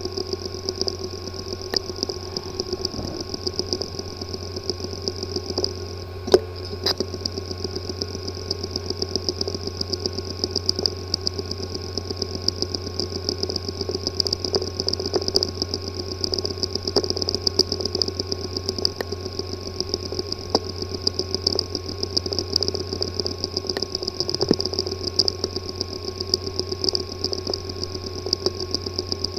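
Hard drive with a physically damaged disk assembly running: a steady hum and high whine with rapid, uneven clicking, and one louder click about six seconds in. The clicking is the typical sign of a damaged disk assembly.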